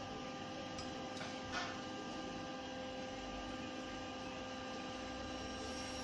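Steady electrical mains hum over quiet room tone, with one faint soft tap about one and a half seconds in.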